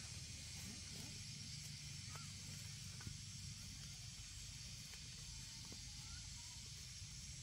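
Faint, steady high hiss over a low rumble, with a few faint short chirps scattered through it.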